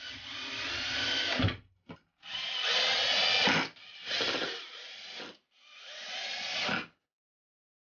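Cordless drill-driver driving wood screws into a wooden batten, one after another: four runs of the motor, each lasting a second or two and cutting off short as the screw goes home.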